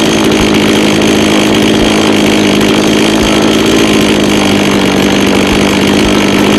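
Two-stroke engine of a Japanese-made grass cutter running steadily at a constant speed. Its even, unwavering note is the sign of a healthy engine that runs very stably.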